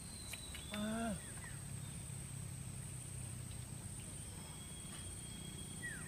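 Quiet waterside outdoor ambience: a steady thin high-pitched tone, with a few short falling bird-like whistles. About a second in comes a brief pitched call that wavers and falls, the loudest sound.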